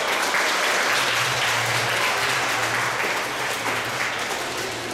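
Audience applauding, the clapping strongest early and thinning out. A low steady hum comes in about a second in.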